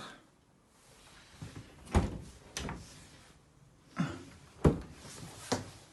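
Fridge freezer doors being opened and shut: a handful of sharp knocks and thuds, the loudest about two seconds in and again past four and a half seconds.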